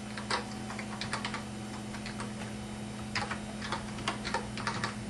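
Keys of a computer keyboard clicking as text is typed into a sign-in form. There are a few keystrokes in the first second or so, a pause, then a quick run of keystrokes from about three seconds in, over a steady low hum.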